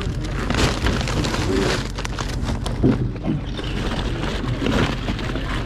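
Plastic bag crinkling and rustling as fish are packed into it by gloved hands, in irregular crackles over a steady low rumble.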